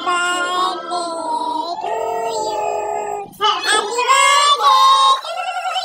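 Women's and children's voices singing together, a birthday song with long held notes, louder after a short break a little past halfway.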